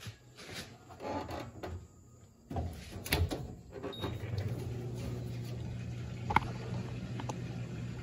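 Electrolux LAC17 top-loading washing machine: a few clicks and knocks, then about two and a half seconds in its motor starts and runs with a steady low hum.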